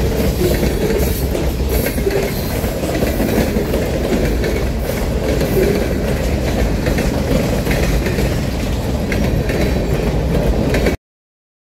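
Freight train's boxcars and covered hopper cars rolling past close by: a steady rumble of steel wheels on rail with a clickety-clack of wheels over rail joints. The sound cuts off suddenly near the end.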